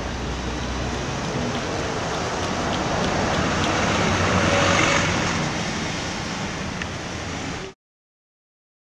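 Steady street traffic noise with a low rumble, swelling a little around the middle as a vehicle passes, then cutting off suddenly near the end.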